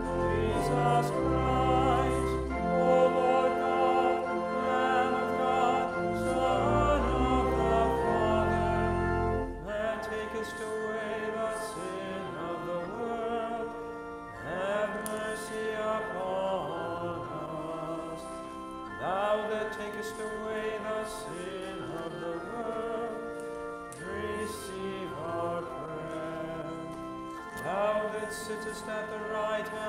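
Voices singing a slow liturgical hymn to sustained organ accompaniment, phrase after phrase. The deep bass notes drop out about a third of the way in.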